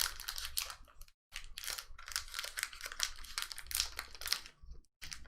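Foil Pokémon booster pack wrapper crinkling and crackling as it is pulled and torn open with some difficulty, broken by two brief dead gaps, one about a second in and one near the end.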